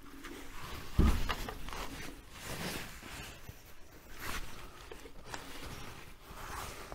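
Workshop handling noises as a car's front subframe is manoeuvred into place on a jack: a heavy thump about a second in, then intermittent scraping and rasping.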